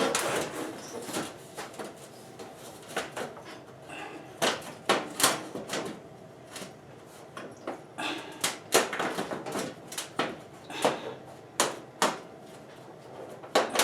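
Sheet-metal furnace duct pipe knocking and rattling in irregular sharp clanks as it is handled and worked to fit one swaged end into another.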